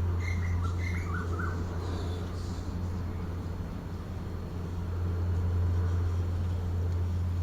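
Small birds chirping, a quick run of short chirps in the first couple of seconds, over a steady low rumble.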